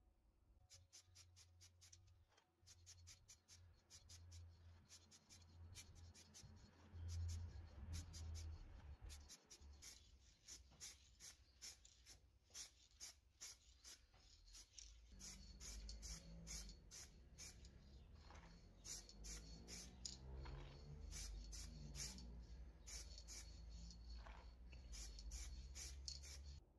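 Faint, irregular small clicks and scratchy rubbing from hand work with small metal parts and an aerosol can, over a low hum.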